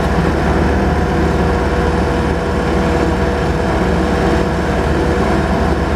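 Skid steer engine running steadily at an even pitch while plowing snow.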